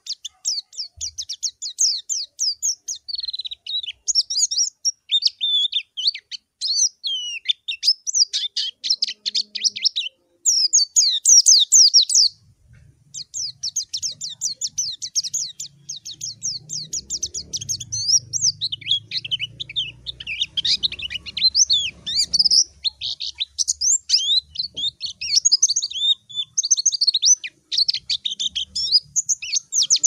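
A white-eye (pleci) singing a fast, jumbled stream of high chirps and trills almost without pause, with a couple of short breaks near the middle. It is the challenging call that a pleci gives to a rival.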